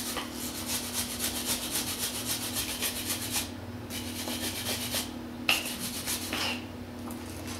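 Wire brush scrubbing slag and spatter off a fresh MIG weld bead on steel, in quick back-and-forth strokes. The strokes run steadily, break off about three and a half seconds in, and come back in two short spells.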